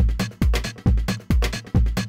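Electronic dance music with a heavy kick drum beating a little over twice a second.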